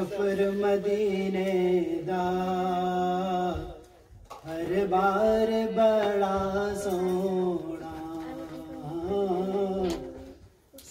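A man reciting an Urdu naat, unaccompanied devotional singing in long held phrases into a microphone, with a short break about four seconds in.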